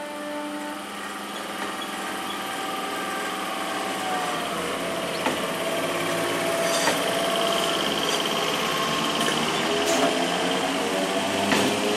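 Electric MEMU train running past close by, its traction motors whining in several tones: one drops about four seconds in and others rise near the end as the train picks up speed. The level builds slowly, with a few sharp wheel clacks over rail joints in the second half.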